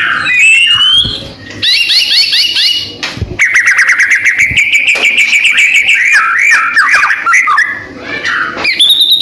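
White-rumped shama (murai batu, Medan strain) in full song: a loud, varied run of rising whistles, fast rattling trills and chattering phrases, with a long rapid trill partway through and a high quick trill near the end.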